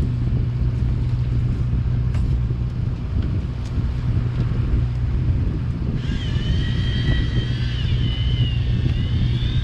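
Fishing boat's engine running steadily with a low hum. About six seconds in, a high wavering whine joins in over it.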